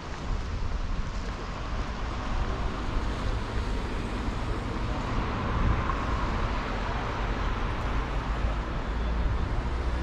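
Street ambience of steady road traffic noise, with low rumble from wind on the microphone; the traffic swells briefly about halfway through.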